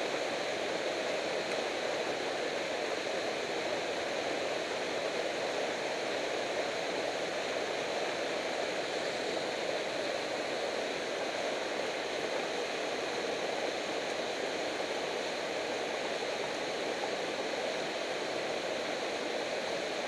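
Small waterfall of a mountain torrent pouring into a rock pool: a steady, unbroken rush of water.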